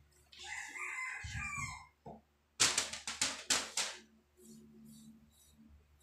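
A rooster crows once, for about a second and a half. A couple of seconds later comes a quick run of about five sharp clatters, the loudest sounds here, as a plate knocks against the stainless steel washing basin.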